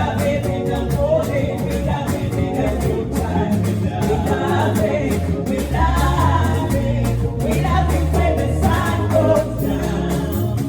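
Gospel worship music: singing over a band with a steady bass line and beat.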